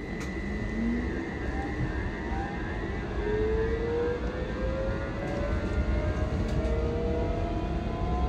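Copenhagen Metro AnsaldoBreda driverless train heard from inside the car: the electric traction motors whine, rising steadily in pitch as the train accelerates, over a low rumble of the wheels on the rails.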